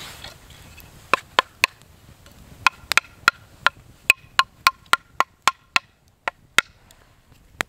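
Dry split kindling sticks clacking together in sharp wooden knocks, about eighteen in irregular groups, several with a short hollow ring. There is a quicker run of about three knocks a second in the middle.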